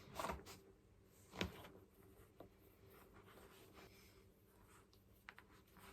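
Near silence in a small room, with a few faint rustles and soft knocks; the loudest is about a second and a half in.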